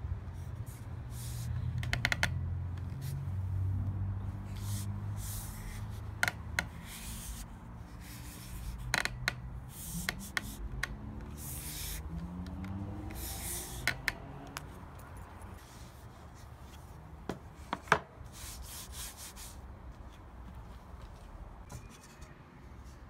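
Hands rubbing and pressing leather down onto a pine paddle strop on a wooden workbench. A series of short brushing strokes is heard, with several sharp knocks of the wood against the bench.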